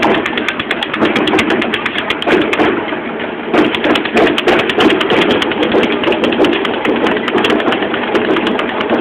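Many runners' footfalls tapping on the street, with steady jostling and rubbing noise from a camera carried by a runner.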